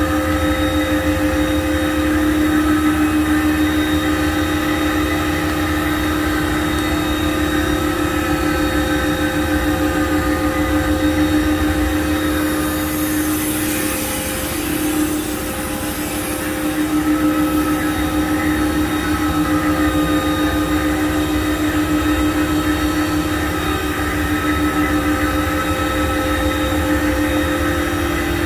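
Steady mechanical drone: several constant tones over a low rumble, with a brief hiss about halfway through.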